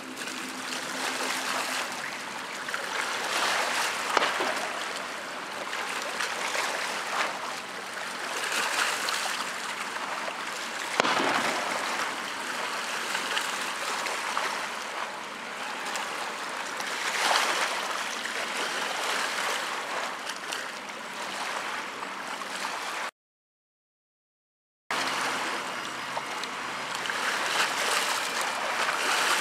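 Water splashing and rushing against a small boat's hull, swelling and easing every few seconds, with a couple of brief sharper splashes. The sound cuts out completely for about two seconds near the end.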